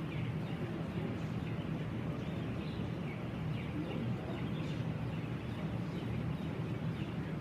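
Many poultry calling and chirping over a steady low ventilation hum in a poultry house.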